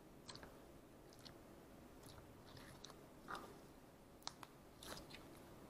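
Faint sticky squishing of slime being kneaded and squeezed by hand, with scattered small wet clicks and pops. The louder pops come a little past three seconds in and again near the end.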